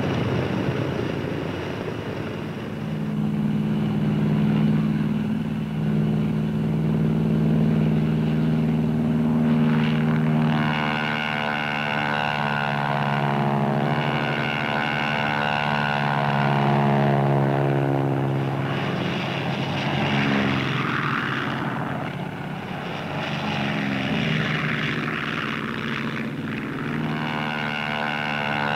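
Grumman F6F Hellcat's Pratt & Whitney R-2800 radial engine droning steadily as the fighter flies overhead, the level swelling and easing slowly.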